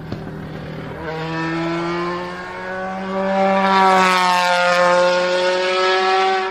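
Race car engine sound effect revving up: the engine note climbs steadily in pitch over a few seconds, then eases off slightly and holds.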